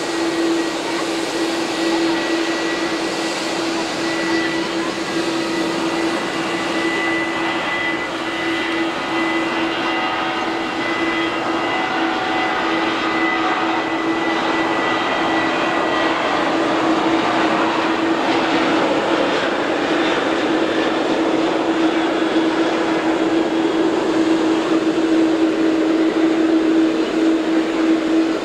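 Boeing 787-8 Dreamliner's GEnx-1B turbofan engines at taxi power: a steady jet whine with a strong low hum tone and fainter higher tones, growing a little louder toward the end as the airliner rolls past.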